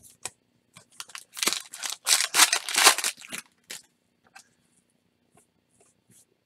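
A foil trading-card pack being torn open and crinkled by hand, about two seconds of ripping and rustling wrapper. A few light clicks and taps come before and after.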